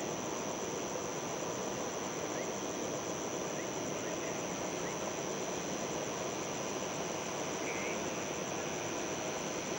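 Distant jet airliner engines running, a steady even noise with no rise or fall, under a constant high-pitched chirring of insects.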